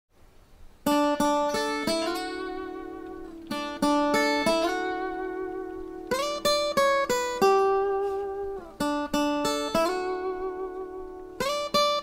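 Intro music on a plucked string instrument: short rising runs of four or five notes, each note ringing on and fading, the phrase starting again about every two and a half seconds.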